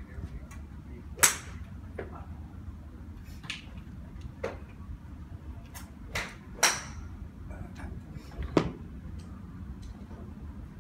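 Golf clubs striking balls at a driving range: several sharp cracks at irregular intervals, the loudest about a second in, over a steady low background rumble.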